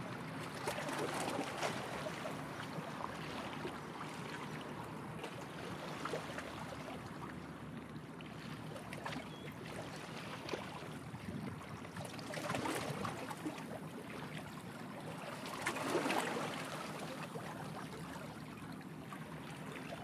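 Small waves lapping and splashing, swelling louder about a second in, around twelve seconds and again around sixteen seconds, over a faint low steady hum.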